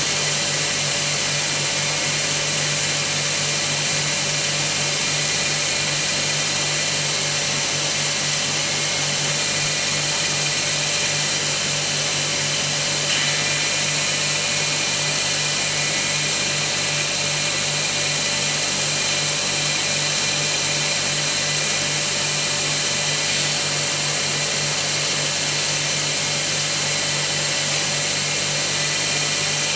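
Homemade polisher driven by a washing machine's spin-cycle motor running steadily, its felt and cotton buffing wheel polishing a coin held against it. The motor gives a constant hum under a steady high hiss.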